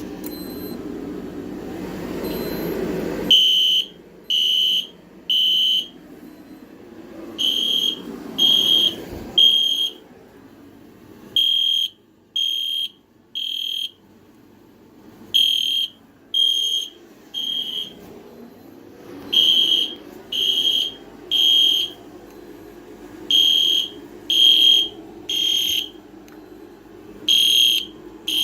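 EST Genesis fire alarm horns sounding in sync in the temporal code-3 evacuation pattern after a pull station is activated: three short high beeps, a pause, then three more, repeating about every four seconds. They start about three seconds in, over a steady low hum.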